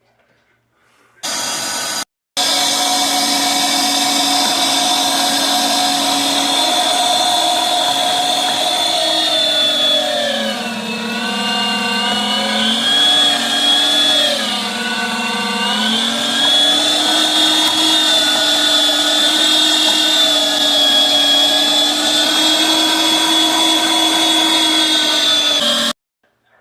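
500-watt electric meat grinder motor running as it grinds partially frozen chuck roast and top sirloin on a coarse grind. It starts about a second in, stops briefly, then runs on with a steady whine. Its pitch drops twice around the middle and picks back up, and it shuts off near the end.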